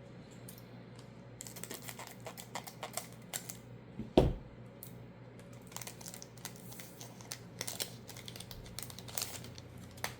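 Magic: The Gathering play booster pack being opened and its cards handled: many light clicks and rustles, with one loud thump about four seconds in.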